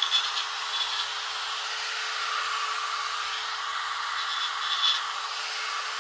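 Small electric rotary tool running at a steady speed, its bit scraping and grinding the wood of an orange-tree bonsai, with a few scratchy spells near the start and about five seconds in.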